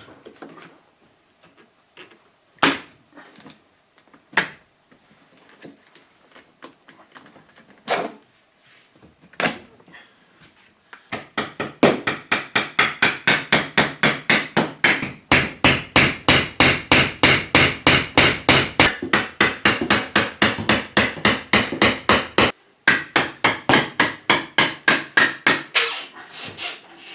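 A few separate sharp knocks, then a long run of fast, even hammering strikes, about three or four a second, with a brief pause near the end.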